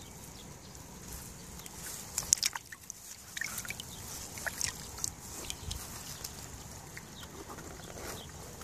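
Live fish stirring in a shallow plastic tub of river water, with a cluster of short splashes and knocks about two to five seconds in.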